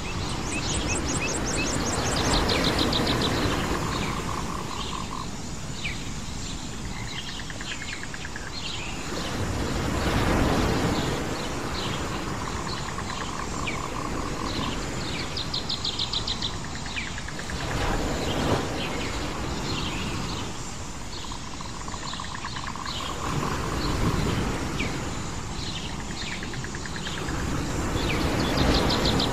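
Island nature ambience: waves washing in, swelling and easing every several seconds, under birds chirping and trilling, with a few rapid trills.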